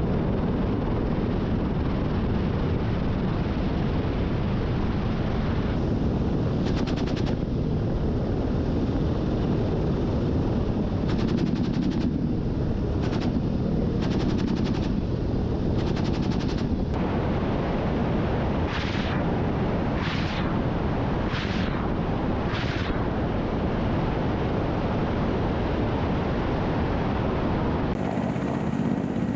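Attack helicopter's steady engine and rotor drone, with short bursts of rapid gunfire through the middle. After that come four separate blasts about a second and a half apart.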